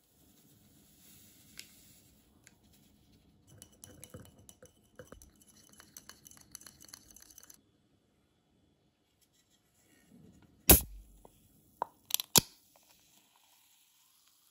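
Faint crackling hiss as agar jelly powder pours from a stick packet into a cup of fizzy cider. After a pause comes a sharp pop and a short hiss as the ring-pull of a Chilsung Cider can is opened, then a few sharp clicks.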